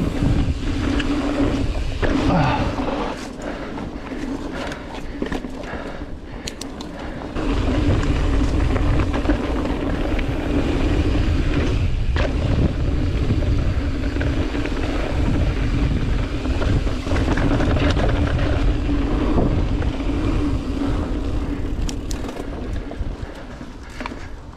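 Mountain bike riding a dirt trail, heard from a GoPro on the rider: tyres rolling and rattling over the ground with occasional sharp knocks, a steady hum, and wind rumbling on the microphone, heavier from about seven seconds in.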